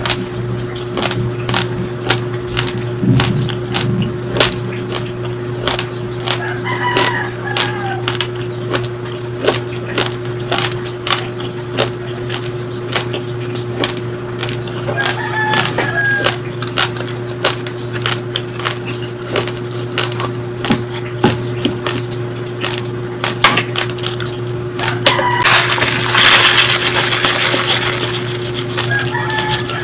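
Close-miked chewing of uncooked white rice grains: a dense run of sharp, dry crunches and crackles. Near the end, dry rice grains pour from a plastic bag onto a wooden plate for about two seconds.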